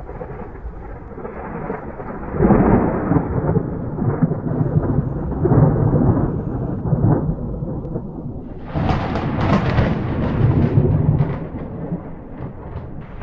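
Thunder rolling and rumbling in long waves, swelling loudest about two seconds in and again around nine seconds with a sharper crackle.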